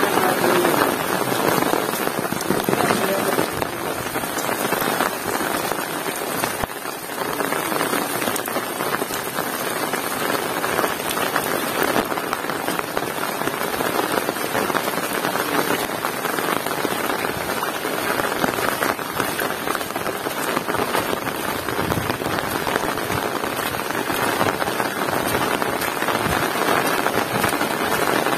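Heavy rain falling steadily, a dense patter of drops striking surfaces with a continuous hiss of water.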